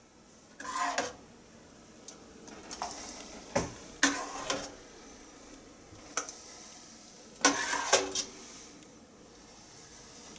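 Metal ladle scraping and clinking against a stainless steel pot while scooping jam, with taps against a plastic canning funnel over a glass jar. Irregular knocks and scrapes come every second or two, the loudest group a little before eight seconds in.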